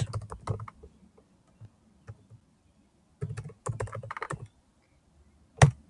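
Typing on a Chromebook's laptop keyboard as a web address is keyed in: scattered keystrokes, a quick run of keys about three seconds in, then a single louder key press near the end.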